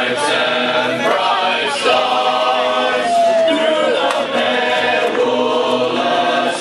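Many voices singing or chanting together, several pitched lines overlapping.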